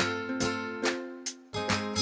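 Upbeat background music of plucked string notes, each struck and then fading, with a brief break about three-quarters of the way through.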